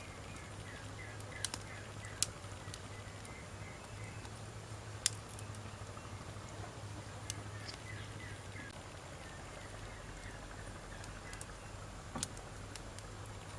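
Wood fire crackling, with a handful of sharp pops scattered irregularly through it; the loudest comes about five seconds in.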